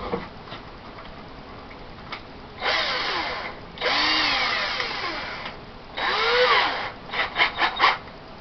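Power drill fitted with a larger bit, run in three bursts with the motor speeding up and winding down each time, then several quick trigger blips near the end.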